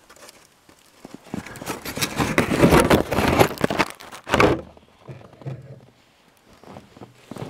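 Close rustling and crunching for about three seconds, ending in a louder crunch about four and a half seconds in: a person moving about right beside the microphone in snow.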